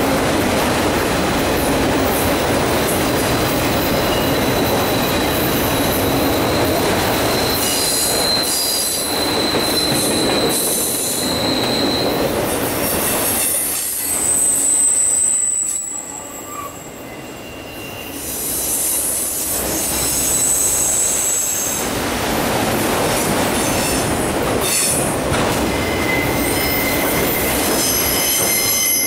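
Freight train of autorack cars rolling past on a curve: a steady rumble and clatter of steel wheels on rail, with high-pitched wheel-flange squeal that comes and goes as the wheels grind through the curve. A brief quieter spell about halfway through.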